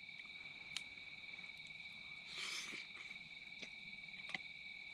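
Crickets trilling steadily and faintly in two continuous high-pitched tones, with a brief rustle about halfway through and a few faint clicks.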